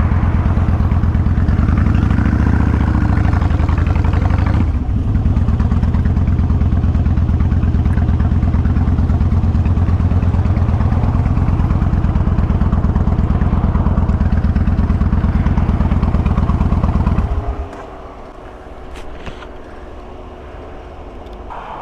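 Kawasaki Vulcan 1500 Classic's V-twin engine running at low speed in slow traffic, with a steady beat of exhaust pulses and a brief dip about five seconds in. About seventeen seconds in the engine stops suddenly as the bike pulls onto the shoulder.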